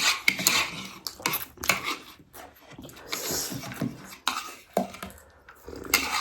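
Eating utensils clicking and scraping against a plate in a quick, irregular series of sharp clinks.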